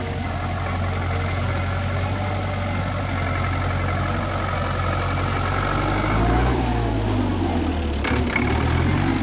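Hürlimann tractor's diesel engine running steadily as the tractor drives by, getting louder as it passes close about six seconds in, its note rising and falling slightly. A brief knock near the end.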